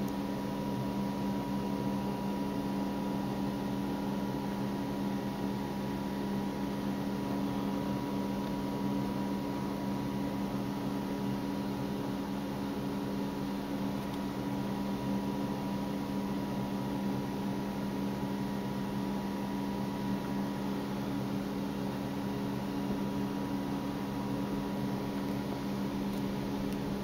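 A steady machine hum with a faint high tone above it, unchanging throughout.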